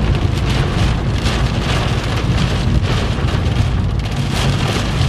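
Heavy thunderstorm rain pelting the vehicle, a dense steady patter of many small impacts over a low rumble.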